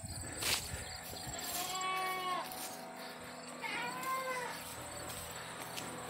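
Two high-pitched bleats from a young goat, each under a second long and rising then falling in pitch, about two seconds apart.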